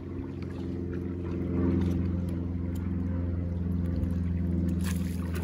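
A motor running steadily with a low droning hum, a little louder from about a second and a half in. A few light clicks sound over it.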